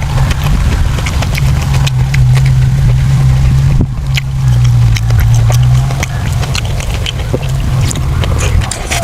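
Close-up chewing of braised pork intestines: wet clicks and lip-smacks come many times a second, over a steady low rumble.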